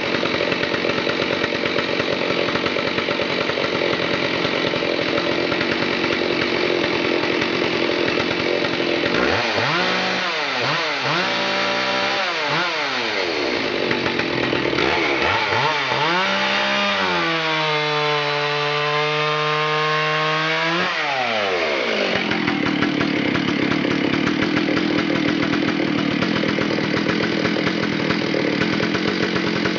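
Stihl chainsaw cutting a log at full throttle, then revving up and down out of the cut, held at a high free-running rev for a few seconds and dropping back to a lower, steady run a little past two-thirds of the way in.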